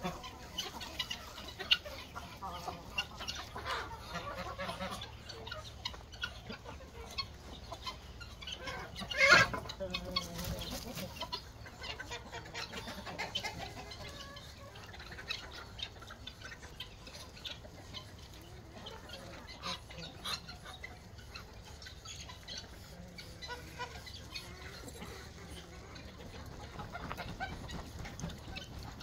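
Farmyard poultry clucking and calling at intervals, with one sharp, louder call about nine seconds in.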